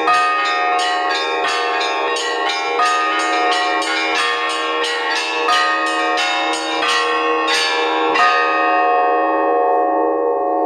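Orthodox church bells rung by hand in a peal: several bells struck quickly, a few strikes a second, over long ringing tones. The strikes stop about eight seconds in and the bells ring on, fading away.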